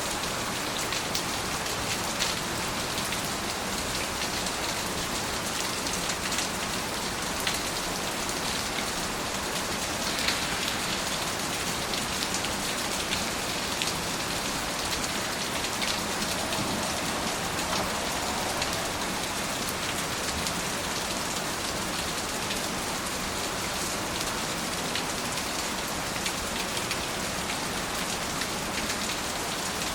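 Steady rain falling, an even hiss with many individual drops tapping close by.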